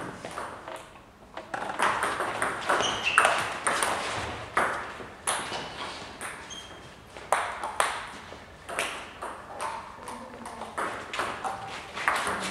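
Table tennis balls clicking off bats and the table during rallies: sharp clicks in quick, irregular runs, with more clicks from play at other tables in the hall.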